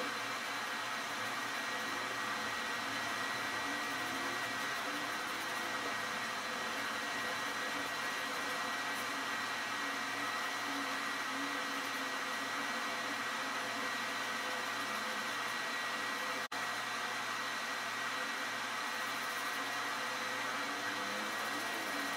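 A steady whirring hum with a faint high tone held throughout, like a fan or other small appliance running. It cuts out for an instant about sixteen seconds in.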